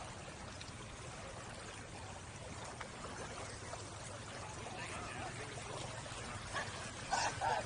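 Steady outdoor background hiss with faint distant voices, with people's voices growing clearer near the end.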